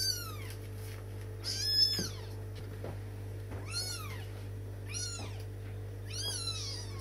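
Burmese kittens mewing: five short, high-pitched mews, each falling in pitch, about a second or so apart, the loudest about two seconds in, over a steady low hum.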